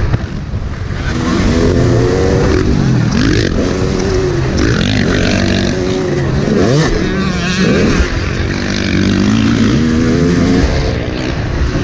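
Yamaha YZ motocross bike's engine, ridden hard, revving up and dropping back again and again as it is worked through the throttle and gears, over rushing wind.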